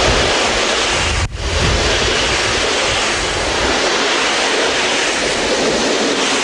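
Blue-and-beige Deutsche Bundesbahn passenger coaches rushing past close by at speed: a loud, steady rush of wheels on rail and displaced air, with wind buffeting the microphone. The noise dips briefly about a second in.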